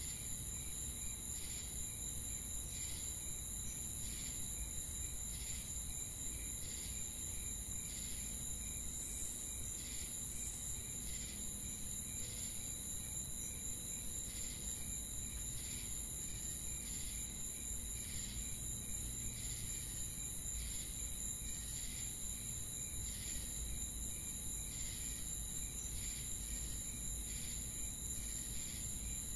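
Crickets chirping in a nature ambience recording: a steady high-pitched trill with evenly repeating chirps over a low, constant background hum.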